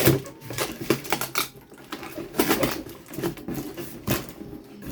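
Cardboard box and packaging being handled and opened, making quick, irregular clicks, crinkles and rustles.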